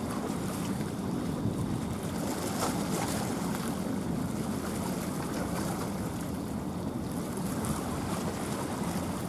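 Steady wind noise on the microphone over sea-water ambience: a low, even noise with no distinct engine tone.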